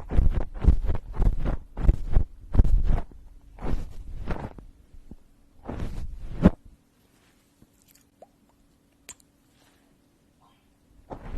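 Close-miked ASMR trigger sounds: rapid crackly rustling bursts, about three a second at first, then two longer bursts, stopping about six and a half seconds in. A faint steady hum and a few soft clicks follow.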